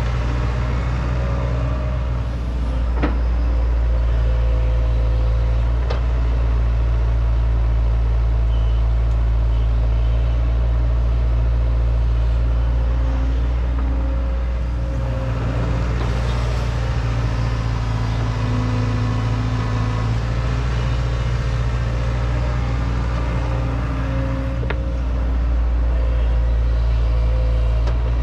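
Excavator's diesel engine running steadily under load, its note rising and falling every several seconds as it works. Two sharp knocks sound about three and six seconds in.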